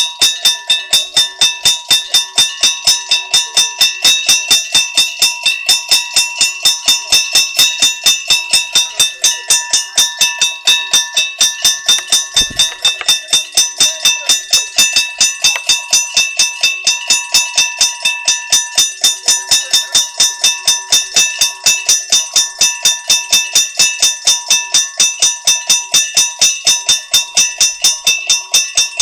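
Japanese railway level crossing alarm of the struck-bell type, ringing in rapid, evenly spaced metallic strokes, several a second, without pause: the warning that a train is approaching the crossing. There is a single dull thump about twelve seconds in.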